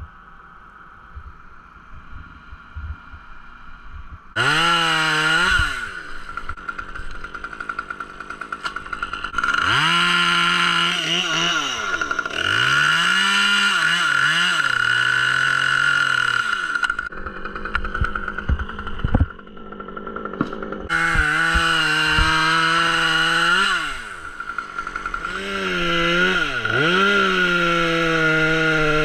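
Two-stroke chainsaw idling quietly, then opened up to full throttle about four seconds in and run at high speed in several long stretches, its pitch sagging and recovering, dropping back toward idle between them.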